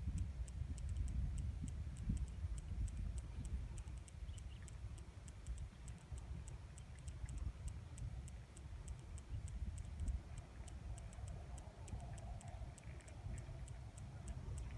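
Even, high-pitched ticking, about three ticks a second, over a steady low rumble.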